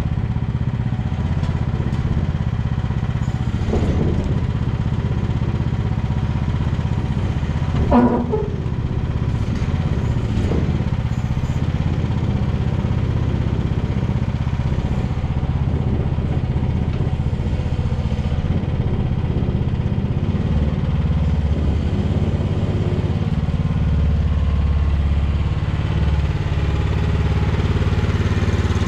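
Mini excavator's small engine running steadily as the machine works itself onto a trailer, with a loud metallic clank about eight seconds in and a couple of lighter knocks around it.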